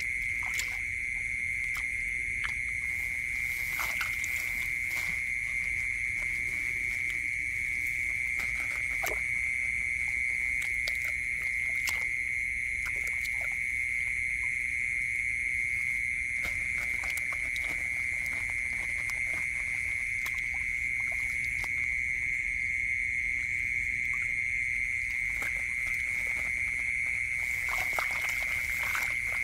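A steady, high-pitched night chorus of calling animals, with scattered small splashes and clicks from hands feeling through shallow muddy water.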